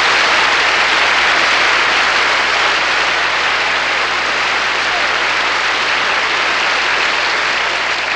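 Audience applauding steadily, welcoming a speaker to the podium.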